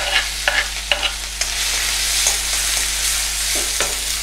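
Chopped onion sizzling and frying in hot oil with mustard seeds in a kadhai, stirred with a steel ladle. The ladle clicks and scrapes against the pan a few times in the first second or so.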